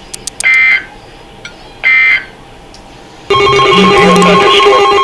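Emergency Alert System end-of-message data tones: two short, shrill buzzing bursts about a second and a half apart. A little over three seconds in, a loud electronic ringing sound made of several steady tones starts and holds.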